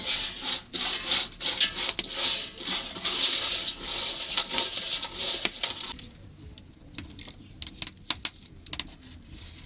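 Small silverfish frying in a pan, sizzling with many sharp crackles and pops. About six seconds in the sizzle dies down, leaving only scattered pops.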